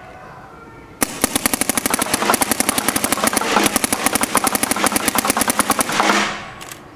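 Electronic paintball marker firing a rapid, continuous string of shots, about fourteen a second, as the trigger is walked for a rate-of-fire run. It starts about a second in and stops sharply after about five seconds, with a brief echo.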